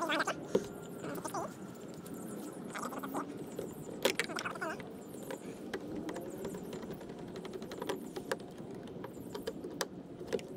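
Scattered light clicks and taps of small hardware being handled: a set screw backed out of a paddle board's fin box and the fin worked into place, over a steady background hiss.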